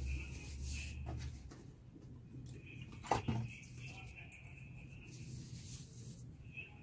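Quiet room sound with a low hum that stops after about a second and a half, and one sharp knock about three seconds in.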